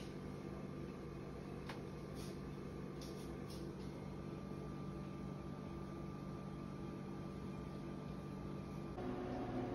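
Room tone with a steady low machine hum and a faint high tone above it. There is one faint click about two seconds in, and near the end the hum shifts to a different set of tones.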